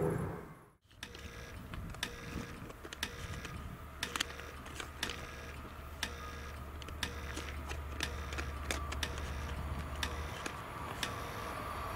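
Level crossing warning signal sounding as the crossing activates: a short bell tone repeating at an even pace with sharp clicks, starting about a second in after a brief drop-out. A steady low hum runs underneath for several seconds in the middle.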